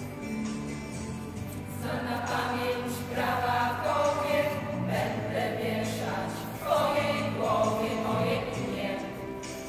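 Women's choir singing in several parts. Higher voices join about two seconds in, and the phrases swell and fall.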